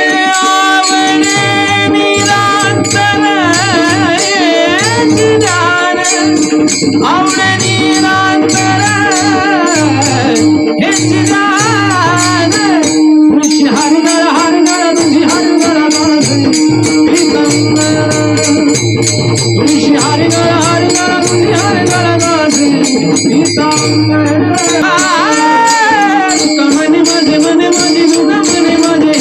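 A man singing a Varkari abhang in a wavering, ornamented melody over a steady drone. Hand cymbals keep a fast, even beat and a drum pulses underneath throughout.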